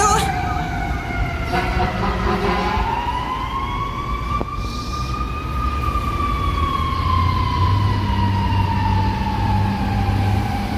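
Fire engine siren sounding one slow wail: the pitch climbs steadily for about five seconds, then slowly falls away.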